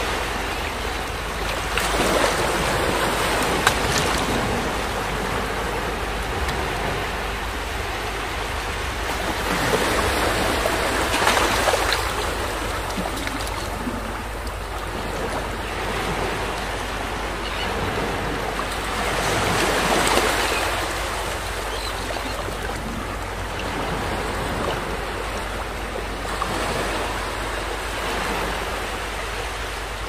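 Small waves washing up a sandy beach and drawing back, a steady hiss of surf that swells and fades four times.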